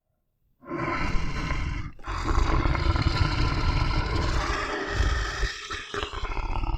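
Monster roar sound effect: starting about half a second in, a deep growl of about a second and a half, then after a brief break a long, sustained roar lasting several seconds.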